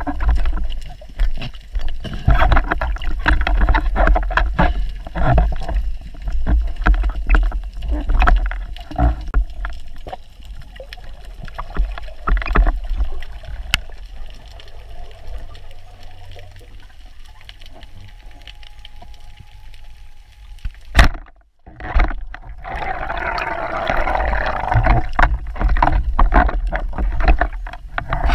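Underwater sound of a spearfisher's camera: water rushing and sloshing past the housing over a low rumble, with many knocks and clicks as the speargun is handled. It goes quieter for a stretch past the middle, then comes a sharp knock, a moment of silence, and a louder rush of water.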